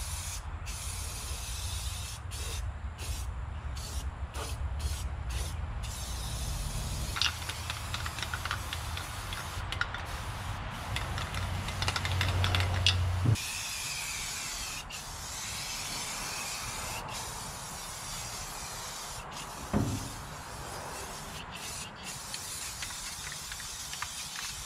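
Aerosol can of truck bed liner paint hissing as it is sprayed in bursts, with short breaks between them at first, then in longer passes. A low rumble sits underneath for the first half and cuts off suddenly about thirteen seconds in.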